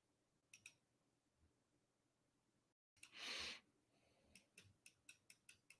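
Faint clicking at a computer desk: two clicks about half a second in and a quick run of about seven more near the end. A breath about three seconds in is the loudest sound.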